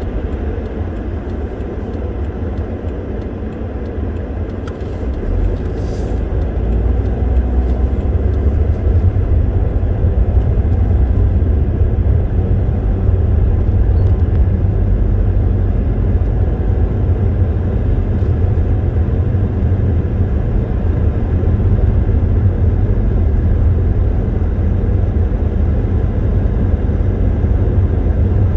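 Car on the move: steady low engine and tyre rumble that grows louder from about five seconds in, then holds steady.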